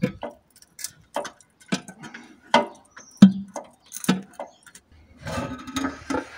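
Irregular metallic clicks and clinks of hand tools being worked on the engine, about two a second, some with a short ring, turning into a denser rattle near the end.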